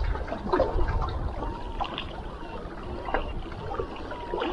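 Small waves lapping and splashing at the shoreline, with a low wind rumble on the microphone and scattered light clicks.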